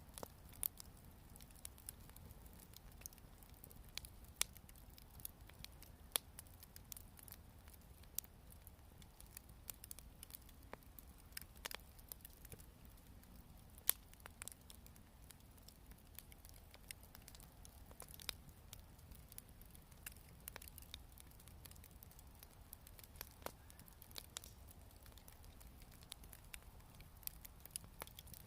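Wood fire crackling faintly, with irregular sharp pops and snaps scattered throughout.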